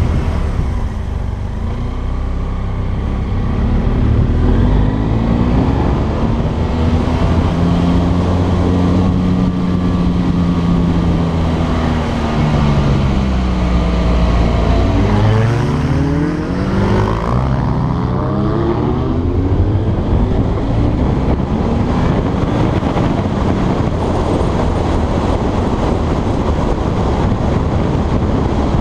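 Motorcycle engine running under way with wind rush on the microphone, its pitch easing off and building again through the hairpin bends, with a sharp climb in revs about halfway through as it accelerates.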